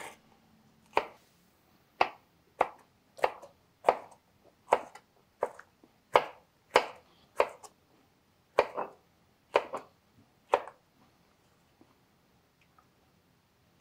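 Chef's knife slicing bell pepper into strips on a cutting board: about fifteen separate knocks of the blade on the board, roughly one a second, stopping a few seconds before the end.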